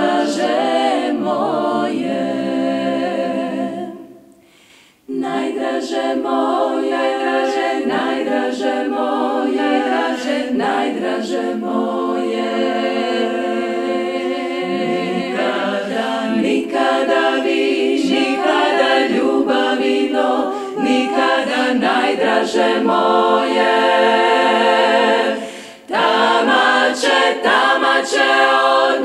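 Women's klapa choir singing a cappella in close multi-part harmony, breaking off briefly about four seconds in and dipping for a moment near the end.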